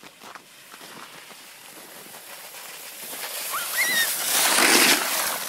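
A sled sliding and scraping over icy, packed snow, growing louder as it comes downhill and loudest as it passes close, about four to five seconds in. A brief high squeal rises and falls just before the loudest part.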